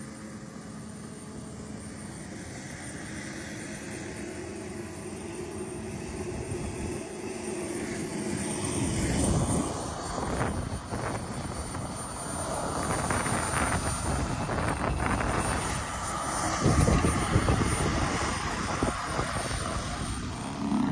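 Aircraft flying by, its engine noise building steadily over the first half and staying loud, with a few heavier rumbling swells.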